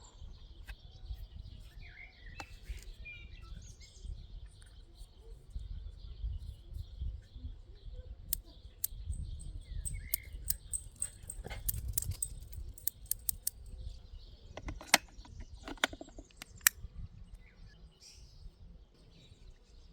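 Outdoor ambience: scattered short bird chirps over a steady high hiss and a low rumble. A run of sharp clicks and taps comes through the middle, and two loud clicks follow later.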